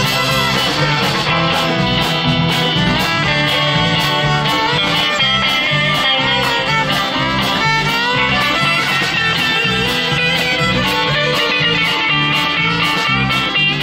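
Live band playing an instrumental break: guitar and fiddle over bass guitar and congas, with a steady beat.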